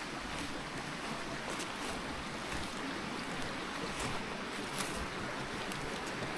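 A steady rushing noise with a few faint clicks.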